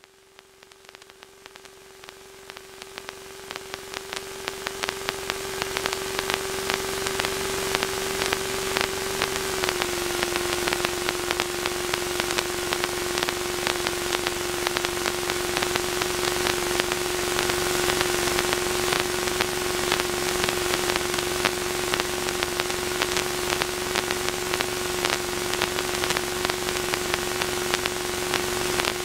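Hiss and crackling static on a light aircraft's radio/intercom audio feed, with a steady whine that steps slightly lower about ten seconds in. The hiss grows louder over the first several seconds, then holds.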